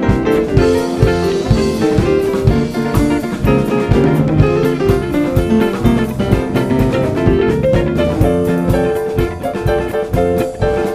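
A live band playing jazzy music, a drum kit keeping a steady beat under guitar and other instruments.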